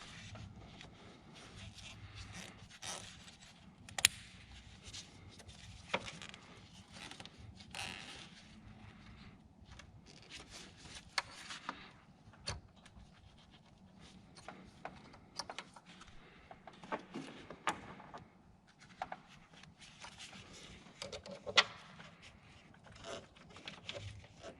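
Irregular clicks, taps and scraping of hands working on parts and tools, with a few sharper clicks scattered through.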